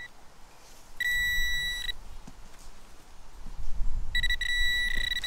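Metal-detecting pinpointer giving a steady high beep: once for about a second near the start, then again continuously from about four seconds in as it is pushed into the hole. The tone signals metal close to its tip in the soil. Low scraping of soil and handling runs underneath.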